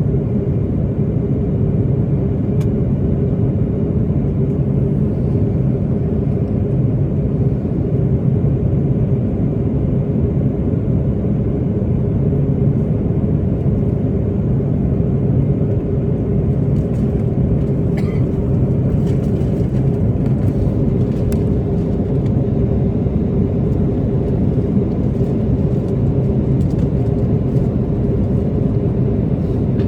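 Steady cabin drone of an Airbus A330-323 airliner in descent: Pratt & Whitney PW4000 engine and airflow noise with a constant low hum through it. A few faint ticks of cabin trim are heard around the middle.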